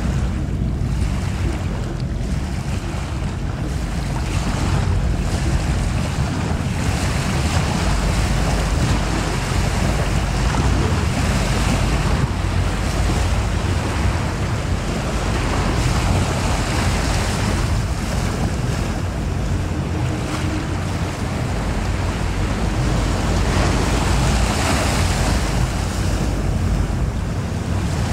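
Steady wind buffeting the microphone over the sound of waves on open water.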